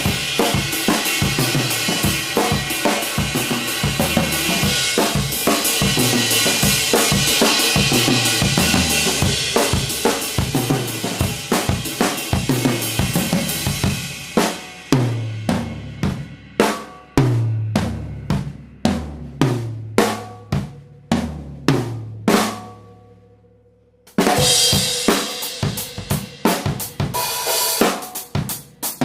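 A 1970s Reuther (Pearl) drum kit with a Ludwig Acrolite aluminium snare and Istanbul Xist cymbals being played. It opens with a busy groove under a wash of cymbals. About halfway through the cymbals drop out and single drum strokes ring with long low tones. After a short stop near the end, the full kit comes back in with cymbals.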